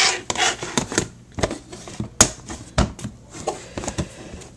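Plastic reptile tubs being handled in a rack: a scattering of sharp, irregularly spaced clicks and knocks, with a brief rustle at the start.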